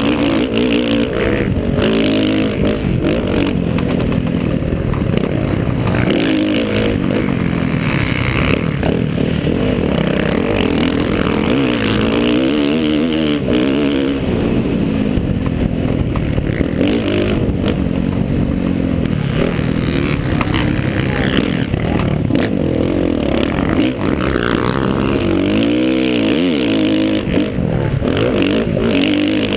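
50cc motocross bike's engine revving up and down continually as it is ridden hard over a dirt track, heard close up from the rider's helmet. Wind noise and the clatter of the bike over the ruts run under it.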